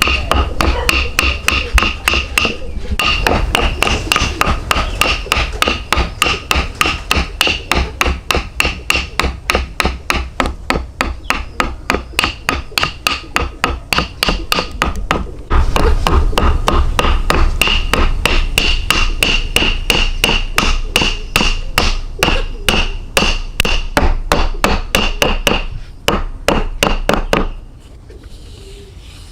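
Rapid, steady hammer blows, about four a second, each with a metallic ring, with two brief breaks and stopping a little before the end.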